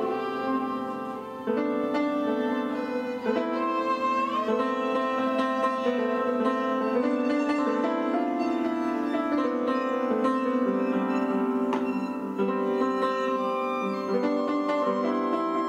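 Violin and piano playing together live: held, bowed violin notes over piano, the notes changing every second or so, with an upward violin slide about four seconds in.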